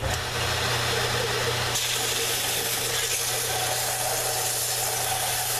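Electric belt sander switched on and running steadily, sanding the ends of two dowel-pinned knife handle scales even. It starts at once and runs with a constant motor hum under the hiss of the belt, on a belt worn enough to need replacing.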